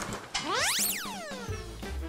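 A cartoon sound effect: a whistle-like tone that swoops quickly up in pitch and then slides back down more slowly, over light background music.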